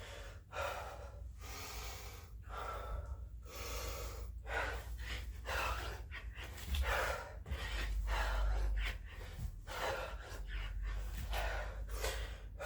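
A man breathing hard, with quick gasping breaths in and out, each lasting under a second: he is out of breath from doing burpees.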